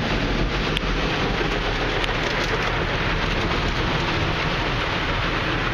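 Brushes of a Ryko SoftGloss XS 2.0 automatic car wash scrubbing the car while water sprays over it, heard from inside the cabin as a steady, dense rush of noise with a few faint ticks.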